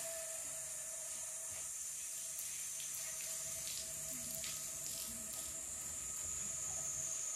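Water spraying from a garden hose, a steady hiss with a few faint splashes.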